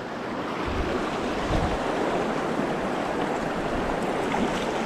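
Fast-flowing river water rushing, a steady wash of noise that swells a little in the first second and then holds.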